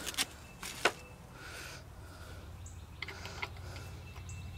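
A few light metal clicks and clinks from a small wrench and carburetor bolts being handled in the first second, then only soft faint sounds over a steady low hum.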